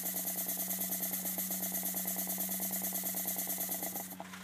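Small single-cylinder model steam launch engine running on compressed air at about 20 psi, unoiled: a fast, even chuffing of exhaust puffs, several a second. It stops a little after four seconds in.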